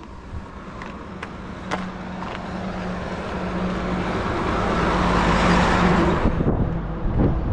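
Heavy truck coming down the road and passing close by: its engine hum and tyre noise grow louder, peak about six seconds in, then fall away suddenly as it goes past.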